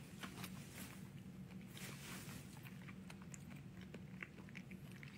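Faint mouth sounds of someone chewing purple-grape jelly, with small scattered clicks, over a steady low hum.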